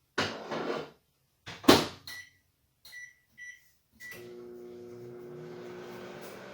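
A microwave oven's door clunks shut and its keypad beeps four times. The oven then starts up and runs with a steady hum.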